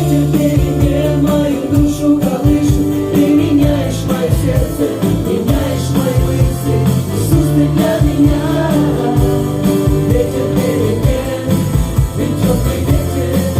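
Song with singing over a band: sustained bass and chord notes with a steady drum beat.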